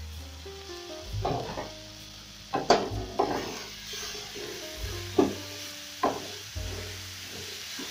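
A wooden spatula stirring tripe, tomatoes and coriander in a frying pan: a handful of scraping strokes against the pan over a soft sizzle of frying, with background music.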